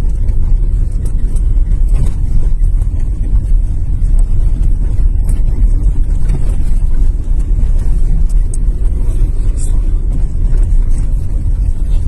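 Car driving on a snow-covered road, heard from inside the cabin as a steady low rumble of engine and tyres, with a few faint ticks scattered through it.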